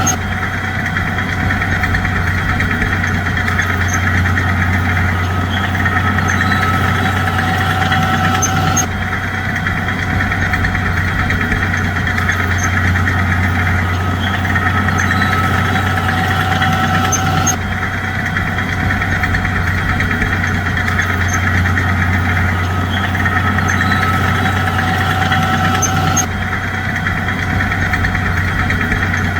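Heavy bulldozer diesel engine running steadily, a continuous low drone, with the same stretch of sound repeating about every nine seconds.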